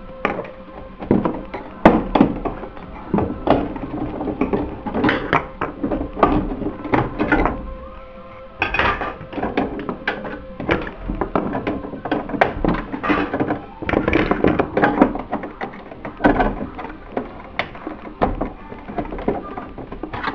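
Irregular plastic knocks, clicks and snaps from a Canon MP130 printer's casing being pried apart by hand, as a side cover is unclipped and pulled off.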